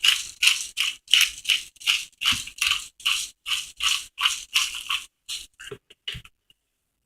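Black pepper shaker being shaken in quick, even strokes, about three a second, making a dry grainy rattle. The strokes thin out and stop about five seconds in.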